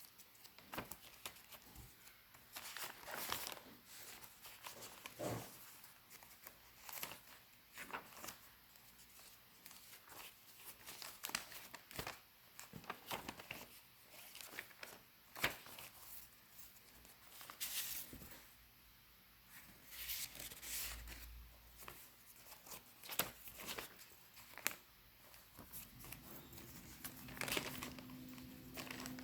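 Paper pages of a handmade junk journal being turned and handled, with irregular rustling and crinkling of loose paper ephemera and light taps. A faint steady tone comes in near the end.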